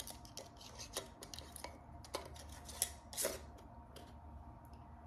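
Glass canning jars and metal lids being handled on a kitchen counter: scattered light clicks and taps, with a sharper clink about three seconds in, over a faint low hum.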